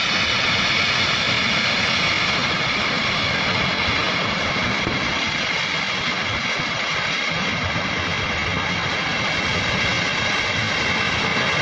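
Steady roar of a flash-flooded river rushing past in full spate.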